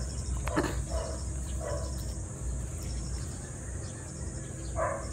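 Insects chirring steadily at a high pitch, over a low rumble.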